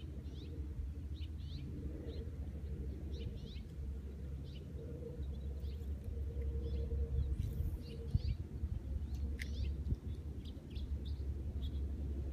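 Small birds chirping: many short, high calls, a few each second, over a steady low rumble.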